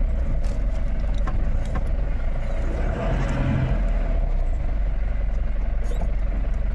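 Passenger van running on the road, heard from inside the cabin: a steady low engine and road rumble with a few light clicks and rattles.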